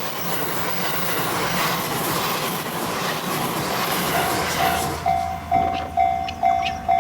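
Series E353 limited express Azusa train passing at speed, a steady rush of wheel and rail noise that cuts off about five seconds in. Behind it, a level-crossing alarm keeps ringing in a steady beat of about two strikes a second.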